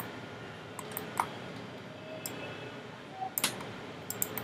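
Irregular clicks from a computer mouse and keyboard: a handful of separate taps, then a quick cluster about three and a half seconds in, over a steady low hiss.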